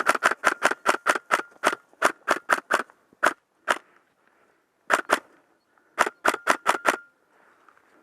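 Airsoft rifle firing a quick string of snapping shots, about four or five a second, for nearly three seconds. A few single shots and a pair follow, then another quick string of five shots about six seconds in.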